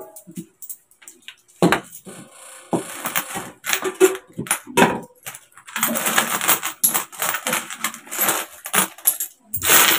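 Metal coins clinking against each other and the tabletop as they are picked up by hand and stacked for counting. The clinks come one by one in the first half, then a dense run of jingling starts about six seconds in.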